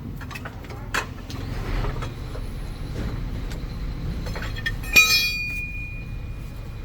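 Scattered light clicks and knocks of metal tools over a low steady rumble, then a sharp metallic clang about five seconds in that keeps ringing on one high tone as it fades.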